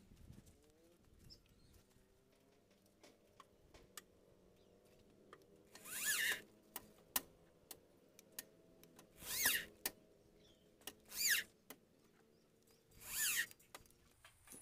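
Cordless drill run in four short bursts, its motor pitch rising and falling with each squeeze of the trigger, with scattered light clicks and taps between the bursts.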